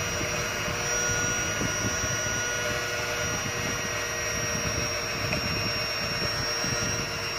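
Electric hand mixer running steadily, its two beaters whipping a chocolate mousse mixture in a glass bowl until it doubles in volume. The motor gives an even whine that holds the same pitch.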